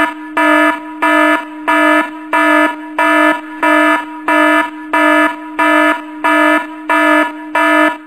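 Electronic alarm sounding a loud, buzzy pulsing tone, about three pulses every two seconds over a held low note, cutting off right at the end.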